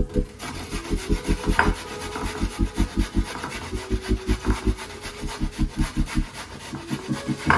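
Background music with a fast, steady low beat of about five pulses a second.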